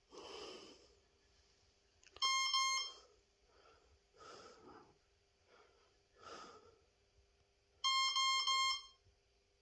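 E-flite 30A Smart brushless ESC beeping through its motor in programming mode, sounding the options of the timing menu. Two short runs of quick, high beeps come about two seconds in and near the end, with soft breaths between.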